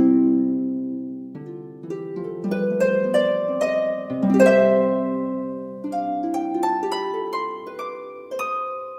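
Background music: a gentle melody of plucked notes, each ringing and fading before the next.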